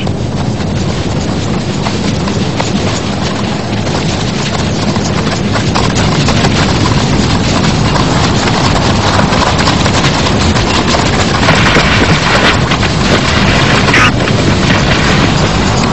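Rapid hoofbeats of animals running flat out, over a dense rushing noise, as in a cheetah's sprint after fleeing prey.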